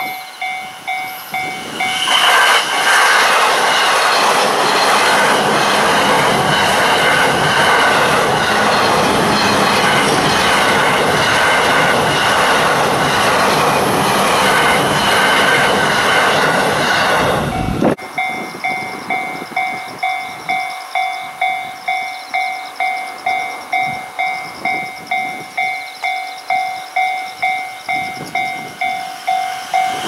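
Japanese level-crossing warning bell ringing with a steady electronic ding-ding. About two seconds in, an electric commuter train passes at speed with a loud rush of wheels and running noise. The rush stops abruptly after about sixteen seconds, and the crossing bell rings on at about two strikes a second.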